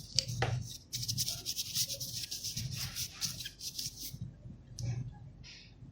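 A scratchy rubbing noise made of many quick strokes that stops abruptly about four seconds in, over a faint low hum.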